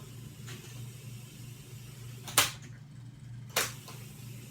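Two sharp clicks about a second apart over a steady low hum, with the background hiss cutting out between them, like the stop and play keys of a cassette deck being pressed.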